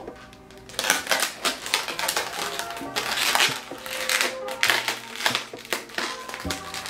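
Long latex twisting balloon being handled and twisted, making irregular rubbing, squeaking noises that start about a second in, over background music.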